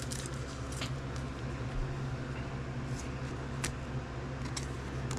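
Trading cards handled with gloved hands: a few faint clicks and rustles of card and plastic holders over a steady low hum.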